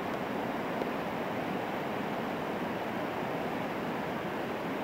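Steady rushing of whitewater river rapids, an even hiss-like roar with no breaks.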